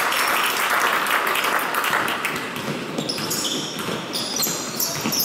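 Basketball game in a gym hall: sneakers squeak sharply on the court floor and the ball bounces, over a general din of crowd noise that is loudest in the first two seconds.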